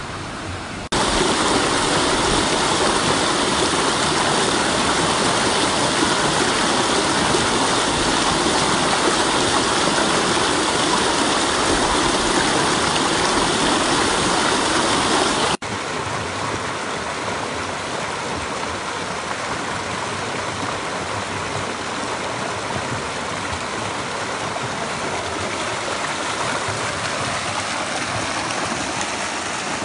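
Stream water rushing and splashing over rocks in a shallow rocky creek: a steady hiss of whitewater. It jumps louder about a second in and drops abruptly to a slightly softer rush about halfway through.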